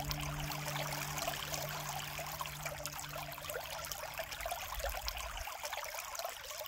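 Spring water trickling and splashing from a small spout at the foot of a stone spring housing, steady throughout.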